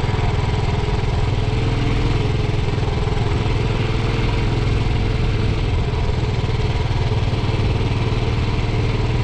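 Motorcycle engine running steadily as the bike is ridden along at an even pace.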